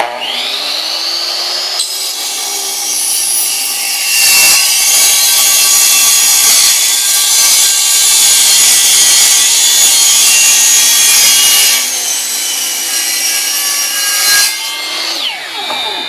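Homemade golf-cart-powered sawmill spinning up with a rising whine, then sawing through wood, loudest from about four to twelve seconds in, before winding down with a falling whine near the end; this is a test cut that comes out square.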